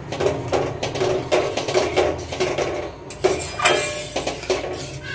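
Metal spatula scraping and clinking against a steel pan, stirring milk and grated coconut in quick repeated strokes.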